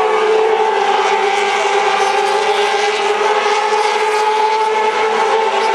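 Racing motorcycle engines running as one steady, even drone that barely changes pitch.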